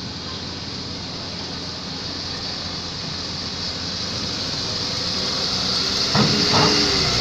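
Heavily loaded truck running under load as it drives off a ferry, the rumble growing louder, with a brief clatter near the end.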